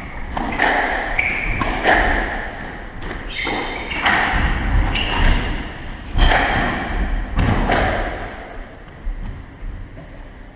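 Squash rally: the ball is struck hard by the rackets and smacks off the court walls, a run of sharp hits about a second apart, each ringing briefly in the hard-walled court. The hits stop about eight seconds in as the rally ends.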